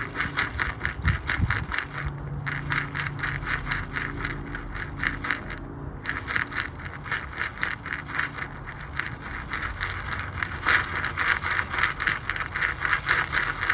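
Harsh noise performance through a PA: a scraping, crackling noise pulsing about four times a second over a low drone, breaking off briefly a couple of times and surging louder about two thirds of the way in. The piece is meant to evoke coffee beans being ground up.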